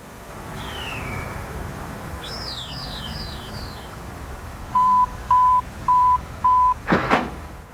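A background of low noise with birds chirping: one falling call, then a quick run of five or six high chirps. About five seconds in come four short beeps at one steady pitch, evenly spaced, and near the end a sudden whoosh.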